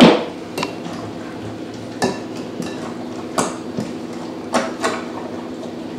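Metal utensil stirring thick guacamole in a glass bowl, clinking against the glass now and then, with a loud knock right at the start.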